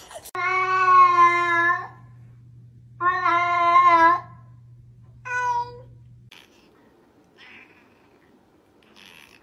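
A cat meowing loudly three times over a steady low hum: two long, drawn-out meows held at a steady pitch, then a short, higher one.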